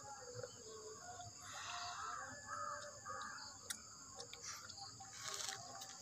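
Faint bird calls: many short chirping notes, with a run of them about two seconds in, over a steady high insect drone.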